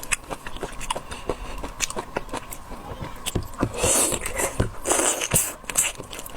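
Close-miked eating of seafood: a stream of small wet clicks and crackles of chewing and shell, with two longer, louder hissing sounds about four and five seconds in.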